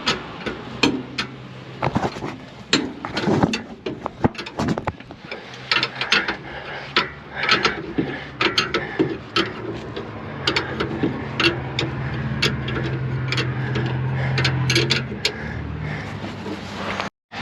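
Hand tools working on combine belt and pulley fittings: irregular sharp metallic clicks and knocks with some ratcheting, as fasteners are tightened up. A steady low hum comes in about halfway through.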